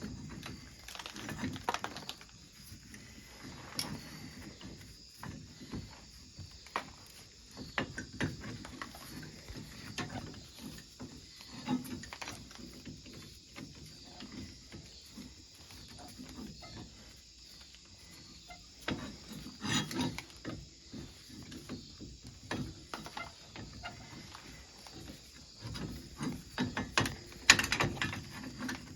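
Scattered clicks, clinks and knocks of hand tools and metal brake parts being handled while working on a side-by-side's brake caliper, the sharpest clanks near the end.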